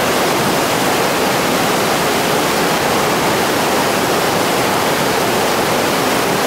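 Loud, steady rush of whitewater rapids pouring over and around boulders in a high-flowing river.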